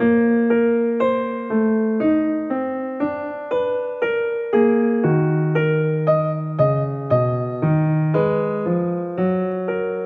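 Background music played on piano-like keys: a gentle melody of single struck notes over low bass notes, about two notes a second, each ringing and fading.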